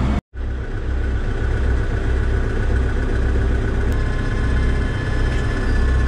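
Farm tractor engine running steadily, heard from inside the cab as a low, pulsing rumble. A thin whine joins about four seconds in.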